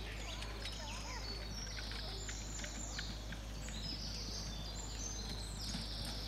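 Open-air field ambience: a steady low rumble with birds chirping and scattered faint clicks.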